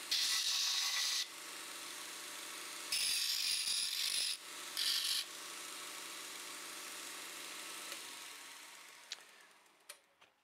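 Narrow 1x42 belt sander running steadily, with the threaded end of a freshly cut steel bolt pressed to the belt three times for a quick deburr, each contact a loud grinding hiss. Near the end the sander is switched off and winds down, with a few light clicks.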